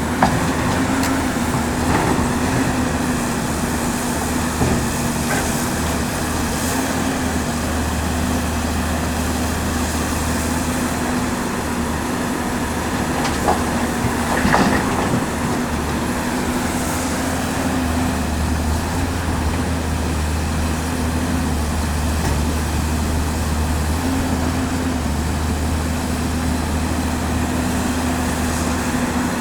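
Caterpillar 329D L hydraulic excavator's diesel engine running steadily while loading excavated earth, its low drone swelling and easing with the work. A few sharp knocks are heard, the loudest about 14 seconds in.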